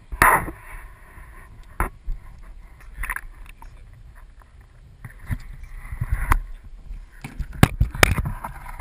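Water splashing and sloshing against the side of an aluminum canoe, with a series of sharp knocks on the hull, as a bowfishing-shot alligator gar is hauled alongside. The loudest knocks come at the start and twice close together near the end.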